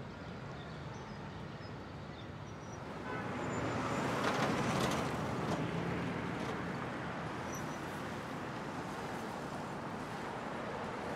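City street traffic noise, with a passing car swelling and fading about four to five seconds in.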